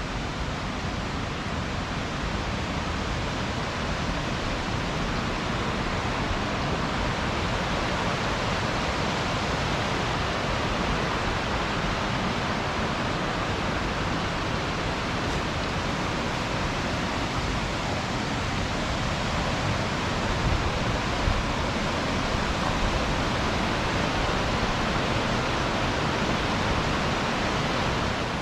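River rapids and waterfalls rushing: a steady, unbroken hiss of falling and churning water.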